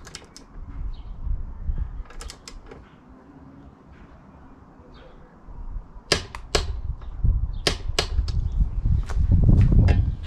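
Click-type torque wrench ratcheting and clicking on the rear rack bolts as they are torqued to 25 newton metres, where the click marks the set torque. There are a few sharp clicks near the start and a run of louder clicks from about six seconds in, with a low rumble near the end.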